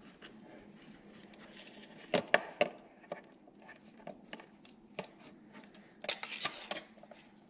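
Hard plastic clicks and knocks as an HID projector is handled and set into a headlight housing: a few sharp knocks about two seconds in, scattered light ticks, and a brief rustling clatter about six seconds in.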